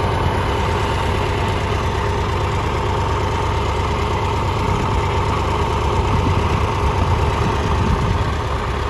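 Triumph Tiger 1200's three-cylinder engine running steadily at idle, with a loose headlight-adjustment part knocking on the bike.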